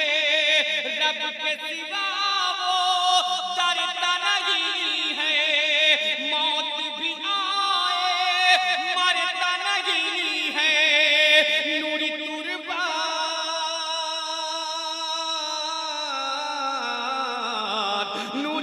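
Man singing a devotional manqabat into a microphone, drawing out long held notes with heavy vibrato. His voice glides down in pitch near the end.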